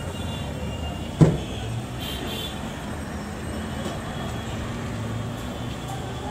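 Steady low rumble of street traffic, with a single sharp knock about a second in.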